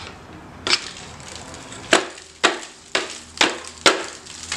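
A series of about six sharp knocks, roughly half a second apart, as tools strike parts of a VW ABA engine while its accessories are taken off.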